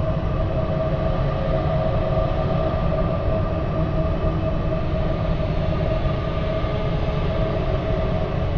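Supernatural-themed ambient drone sound effect: a steady low rumble with held tones above it, unchanging throughout.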